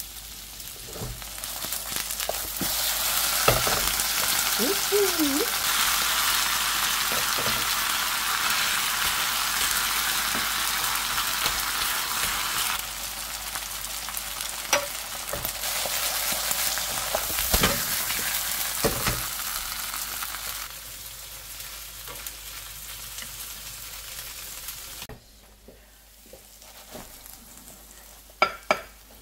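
Korean chive pancake (buchujeon) frying in oil in a frying pan: a steady sizzle that drops in level in steps after about 13 s and 21 s and falls away near 25 s. A few scattered clicks sound through it, and a quick run of sharp clicks comes near the end.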